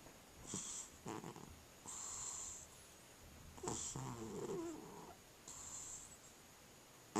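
A cat snoring in its sleep, about one breath every two seconds. Each breath has a hiss, and some carry a low pitched snore.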